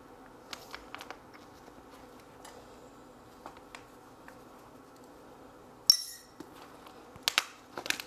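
Light clicks and clinks of small metal pistol parts being handled on a bench, including the MOS adapter plates for the red-dot sight. A short louder rattle comes about six seconds in, and a few sharp clicks follow near the end.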